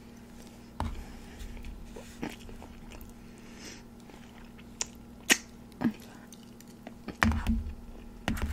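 Close-miked chewing of a mouthful of rice and tender meat: scattered wet mouth clicks and smacks over a faint steady hum, a little louder about seven seconds in.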